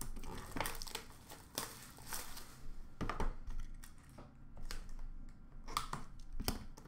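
Hands unwrapping and opening a small white cardboard trading-card box: crinkling and tearing of the wrapper, with a string of light clicks and taps as the box and lid are handled.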